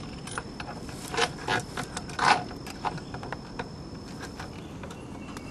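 Irregular clicks and knocks of hands working hardware into the holes of a PVC pipe fitted on a metal pole, with a few louder knocks between about one and two and a half seconds in.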